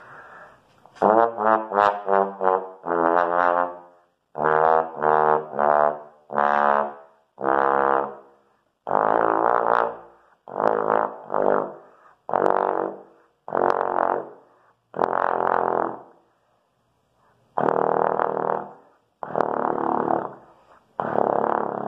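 Trombone played down through its low register: a string of separate held notes, quick short ones at first, then longer ones with breaths between, going lower toward the bottom of the instrument's range.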